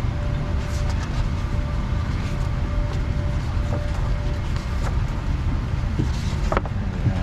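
Steady low rumble in an airliner's cabin, with a faint steady hum over it for the first few seconds and a few light clicks.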